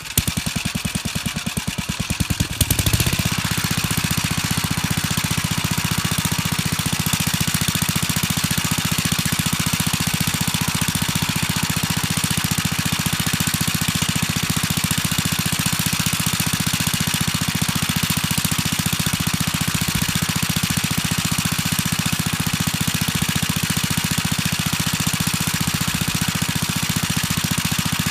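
1959 Gravely Model L walk-behind tractor's single-cylinder engine running steadily with an even, fast firing pulse, picking up in speed and loudness about three seconds in.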